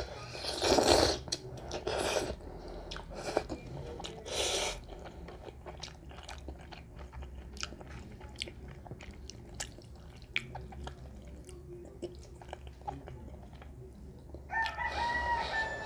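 Instant ramen noodles slurped and chewed: loud slurps about a second in, at about two seconds and at four and a half, then a long stretch of soft chewing with small mouth clicks. Near the end another slurp, with a held tone over it that dips as it stops.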